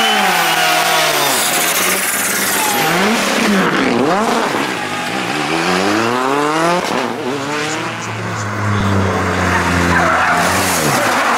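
Rally cars passing at speed one after another, their engines revving hard and dropping with each gear change and lift on the throttle.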